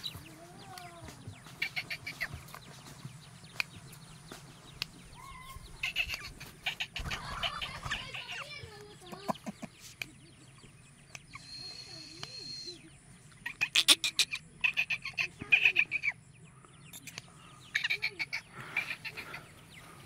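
Black francolins calling: several bursts of harsh, rapid clucking notes in quick series, the loudest about two thirds of the way through.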